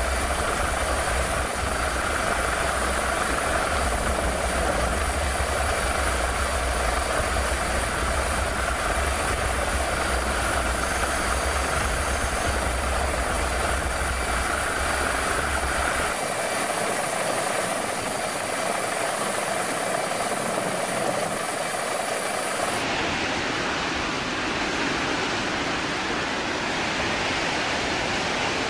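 Steady helicopter engine and rotor noise heard from aboard the helicopter. The low rumble drops out about sixteen seconds in, and near the end it gives way to a brighter steady rushing noise.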